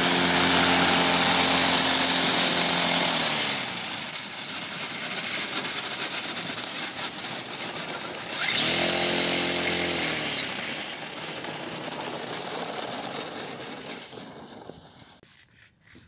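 Homemade aerosled's propeller and motor running at speed with a high whine over a propeller hum. It throttles down about three seconds in, revs up again after about eight and a half seconds, and winds down about two seconds later. The noise fades away near the end.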